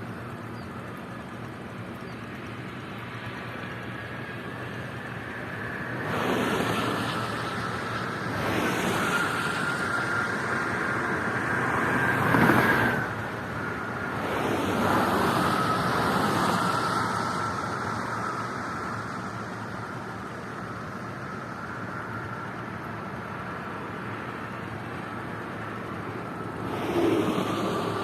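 Toll-road traffic: vehicles pass one after another at speed, about five separate pass-bys, the loudest about halfway through, with quieter road noise in between.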